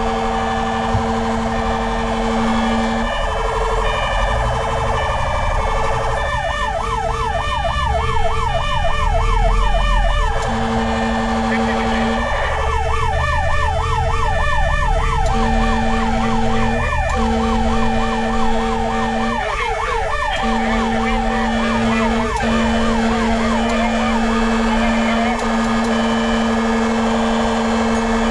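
Fire rescue truck running with its sirens on: a fast yelp siren warbling about four times a second, in two long spells, over deep steady horn tones that sound on and off, with a low engine rumble underneath.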